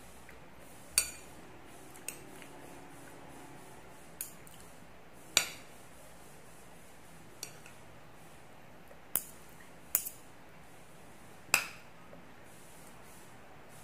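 Metal chopsticks clinking against a ceramic plate while picking up food: about eight sharp, irregular clicks.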